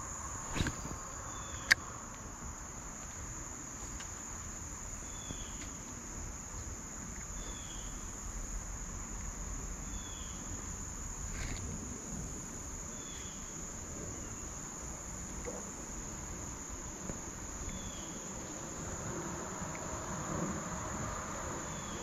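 Insects trilling steadily at a high pitch, with a short falling chirp repeating every two to three seconds over a low rumble. Two sharp clicks sound in the first two seconds.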